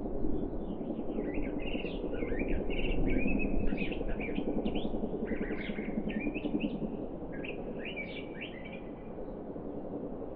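A small songbird singing a rapid, jumbled twittering song in three bursts, the last ending about a second before the end, over a steady low background rumble.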